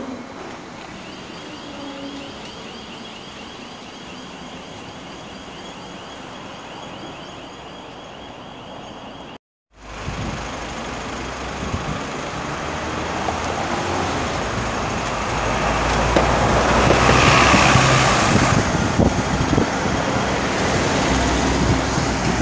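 City street traffic. A quieter steady hum drops out abruptly about nine seconds in, then louder road traffic follows, with vehicles passing close by and the loudest pass in the second half.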